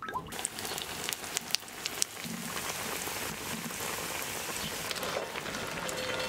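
Hot oil sizzling in a frying pan. Sharp crackles and pops come through the hiss for the first couple of seconds, then it settles into a steady, even sizzle.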